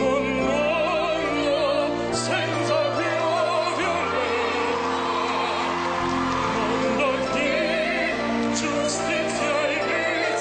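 Operatic singing with a wide vibrato over an orchestral backing track.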